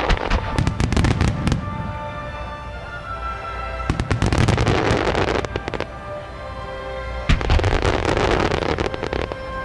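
Star mine fireworks going off in three rapid volleys of bangs and crackling, at the start, about four seconds in and again about seven seconds in, timed to music playing under them.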